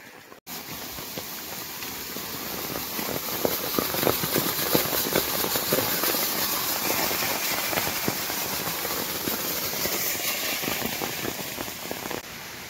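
Heavy rain striking an umbrella, a dense crackle of drops over a steady hiss, growing louder over the first few seconds and cutting off abruptly shortly before the end.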